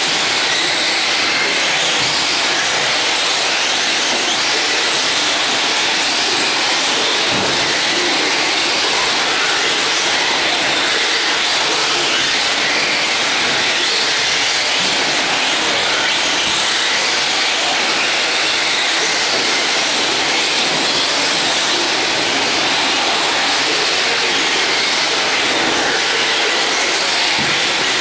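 Several radio-controlled off-road trucks racing on a dirt track, their motors and tyres making a steady, even hiss-like whir with no clear engine note.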